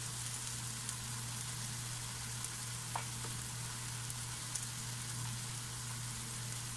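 Sliced onions, tomatoes and green chillies sautéing in oil in a nonstick kadai: a steady, even sizzle with a few faint ticks.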